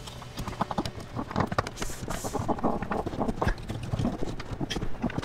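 Irregular knocks, clicks and rustling as a wiring harness and its plastic connectors are pushed and fed down behind the center console trim and carpet, with a brief scrape about two seconds in.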